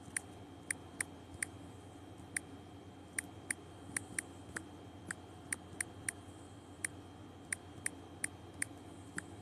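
Sharp, light clicks at an irregular pace of roughly two a second, over a faint steady background.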